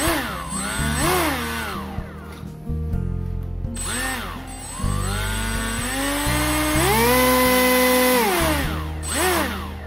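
Brushless electric motor and propeller of a handmade RC airboat whining up and down in short throttle blips. About seven seconds in it holds a steady high pitch for over a second, then winds down. Background music plays underneath.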